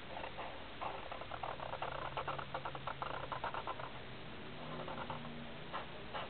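Fine-point Sharpie marker scratching on paper in quick short strokes, about six a second, then one longer stroke about five seconds in.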